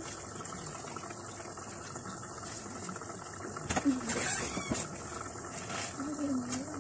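Large pot of vegetable broth at a rolling boil on a gas stove burner: a steady bubbling hiss. A short clatter of knocks comes just before four seconds in.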